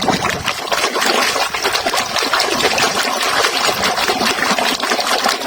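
Water running and splashing steadily as a muddy toy is rinsed clean.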